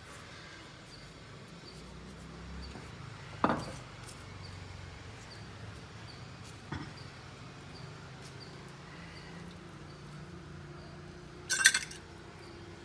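A few sharp knocks and clinks of a pestle against a mortar as herb leaves are pounded for their juice: three separate strikes, the loudest near the end, over a faint steady background.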